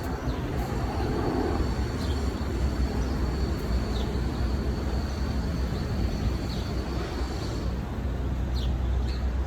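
Outdoor park ambience: a steady low rumble like distant city traffic, with a few faint, short bird chirps scattered through it. A thin, high steady tone stops about three-quarters of the way in.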